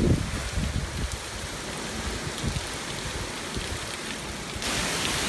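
Heavy wind-driven hurricane rain falling steadily on a street and lawns, an even hissing wash with a last rumble of wind on the microphone at the very start. About four and a half seconds in, it abruptly becomes louder and brighter, a heavier downpour.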